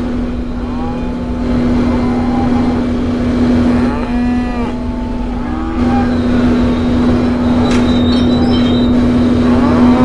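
Sound-designed spaceship engine hum, steady, with a deep rumble beneath it. Over it, alien monsters give repeated animal-like moaning calls that rise and fall in pitch, several overlapping about four seconds in.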